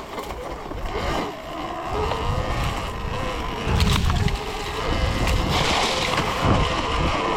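Surron Ultra Bee electric dirt bike riding along the trail: its motor whines, the pitch rising and falling with the throttle. There are bursts of low rumble and a few short knocks.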